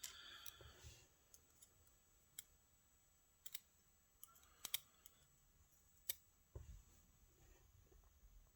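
Faint, sparse small metallic clicks and ticks of lock pins being handled while a Euro cylinder lock is taken apart, with a few sharper clicks around the middle.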